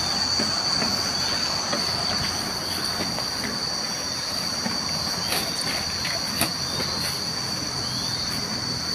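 Insects shrilling in the surrounding vegetation: a steady high-pitched drone that doesn't let up, with scattered faint clicks and small chirps.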